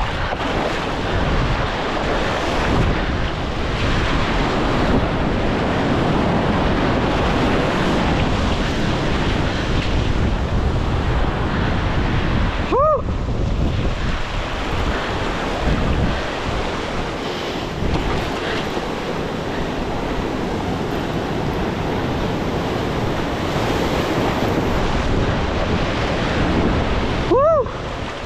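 Surf washing and breaking over a rocky reef shelf, a steady dense rush of water, with wind buffeting the microphone. A short pitched sound rises and falls about halfway through and again near the end.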